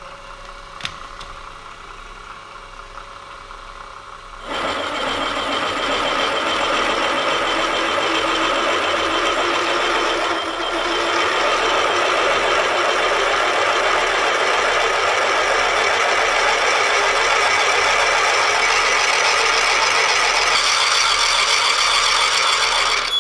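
Large twist drill in a milling machine spindle drilling a 57/64-inch clearance hole through cast iron. The spindle runs lightly at first; about four and a half seconds in, the drill bites into the iron and the sound jumps to a loud, steady cutting noise that carries on.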